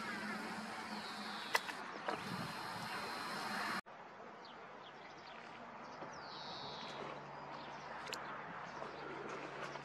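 Faint outdoor background ambience with a steady low hum and a few short high chirps. The sound changes abruptly about four seconds in, where it becomes quieter.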